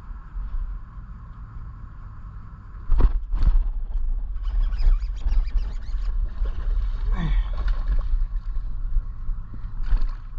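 Boat noise on the water: a steady low rumble with a faint steady hum. About three seconds in it grows louder, and a run of sharp clicks and knocks follows.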